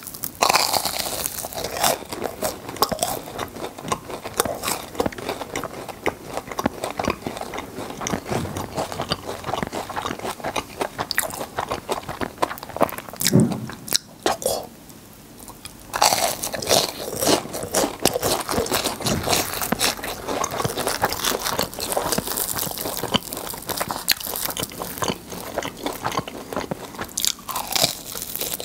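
Crisp fried churros with filling being bitten and chewed: dense crunching that stops for about two seconds halfway through, then resumes.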